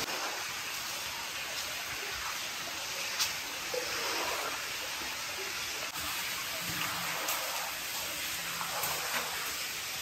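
Steady hiss of running water, with a few faint taps.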